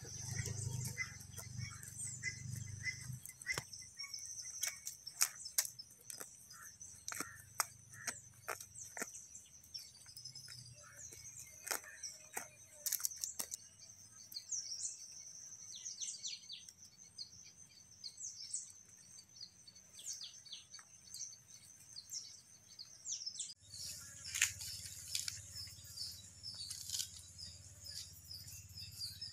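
Outdoor ambience: a steady high-pitched insect drone with birds chirping, and scattered sharp clicks and knocks. Near the end the background changes abruptly and the chirping becomes busier.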